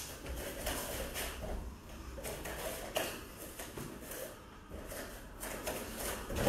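Bare feet stepping and scuffing on foam grappling mats, with irregular short slaps and knocks as two grapplers hand-fight standing.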